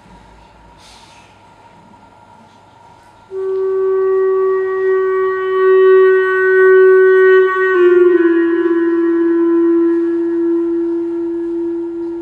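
A single long held note from a wind instrument starts about three seconds in. It drops slightly in pitch about eight seconds in and is held on, as part of the performance's music.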